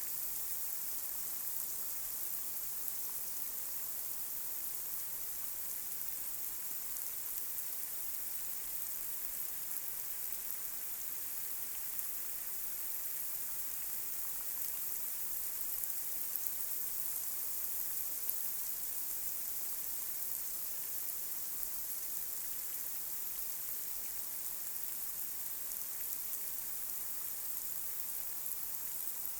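Light rain falling steadily on a street, a constant high hiss with faint scattered drop ticks.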